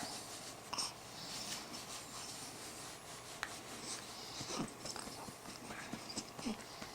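Faint rustling and handling noises with scattered small clicks, and two short soft sounds about four and a half and six and a half seconds in.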